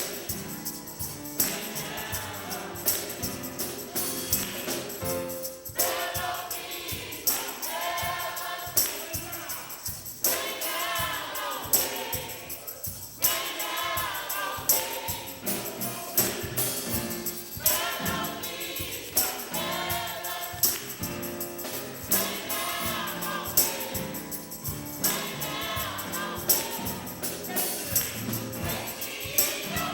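Gospel music: a choir singing over a steady beat with tambourine.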